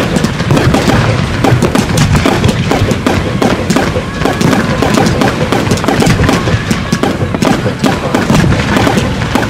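Fireworks cakes firing a rapid, continuous string of shots and bursts, with music playing underneath.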